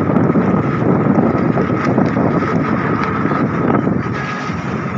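Wind noise on the microphone at an open car window while driving, over steady road and engine noise from the moving car.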